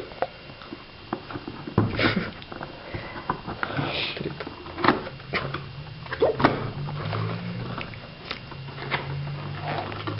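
Cardboard graphics-card box being opened by hand: scattered rustles, scrapes and light clicks of cardboard and packaging. A low hum joins in about halfway through.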